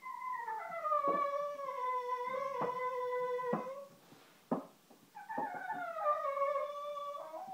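Cockermops dog (cocker spaniel–pug mix) howling: two long howls that slide down in pitch and then hold, the first about four seconds, the second starting about five seconds in. A few short knocks fall between and during them.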